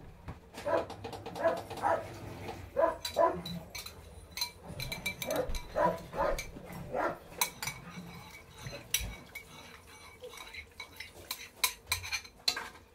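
A spoon clinking and scraping against a bowl and the multicooker's inner pot as sauce is scraped in, with many sharp clinks in the second half. Short repeated barks of a dog come in the first half.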